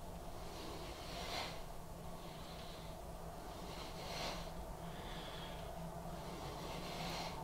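A man's breathing while he does wide-grip press-ups: three short breaths out, about three seconds apart, one for each rep.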